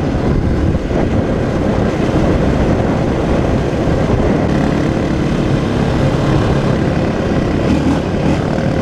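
Dirt bike engine running while riding along a dirt track, heard from the bike itself through heavy wind rush on the microphone.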